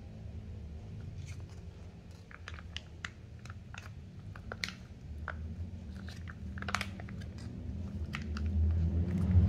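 Foil sauce pouch crinkling and crackling in irregular small clicks as it is handled and squeezed, emptying beef curry onto rice, over a low steady hum that grows louder near the end.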